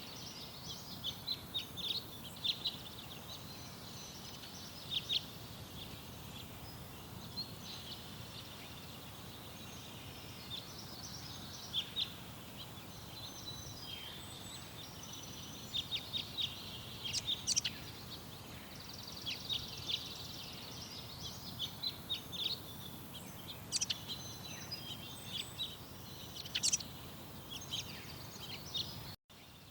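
Small garden birds chirping and singing: clusters of short, high chirps and trills that come and go, over a steady low background noise. The sound cuts out briefly near the end.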